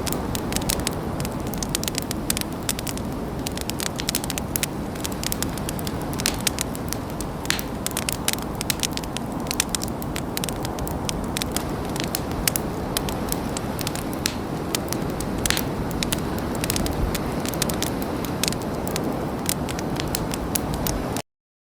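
Campfire burning with a steady low roar and frequent sharp crackles and pops of burning wood, cutting off suddenly near the end.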